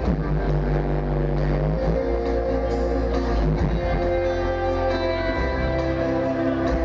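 Sertanejo dance music playing over loudspeakers: a recorded song with guitar and held bass notes.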